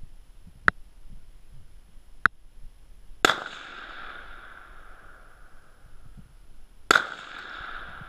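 Two shotgun shots about three and a half seconds apart, each trailed by a long fading echo, preceded by two small sharp clicks.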